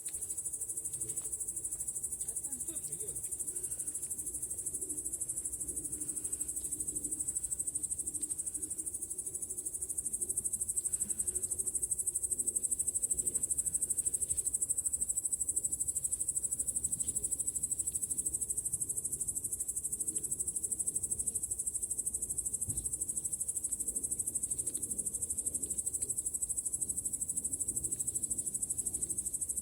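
Steady, high-pitched chorus of insects chirping without a break, with a few faint clicks and rustles beneath.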